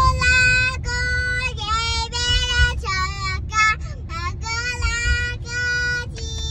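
A toddler girl singing, a string of long held notes that step up and down in pitch, over the steady low rumble of the car cabin.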